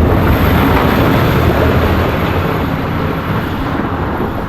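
A 2012 vehicle's engine just after starting, running loud at a fast idle and slowly easing down in level.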